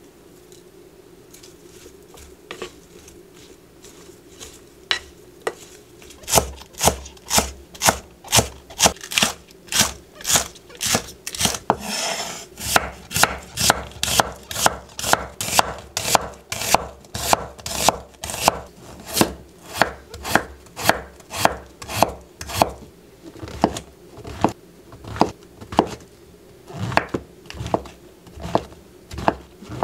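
Rectangular vegetable cleaver chopping green onion and onion on a wooden cutting board: quick, even knife strikes about two to three a second, beginning about six seconds in and growing sparser near the end.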